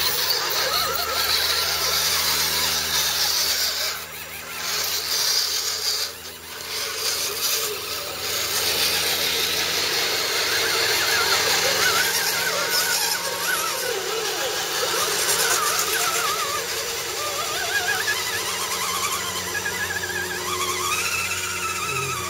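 Electric motors and geared drivetrains of radio-controlled scale trucks whining, the pitch rising and falling with the throttle as they drive through shallow muddy water, with water splashing.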